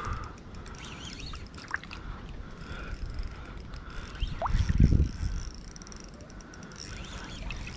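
Spinning reel being cranked by hand, its gears and rotor whirring with light ratcheting as line is wound in on a hooked, tiring fish. A dull low thump comes about five seconds in.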